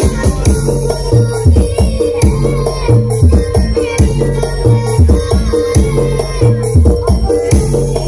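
Loud music through a large outdoor sound system, with a heavy bass line repeating in a steady pattern under dense percussion.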